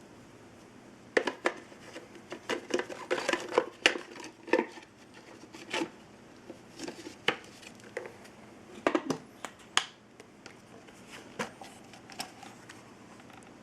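Hard objects being handled: irregular sharp clicks and light knocks, thickest in the first few seconds and then sparser.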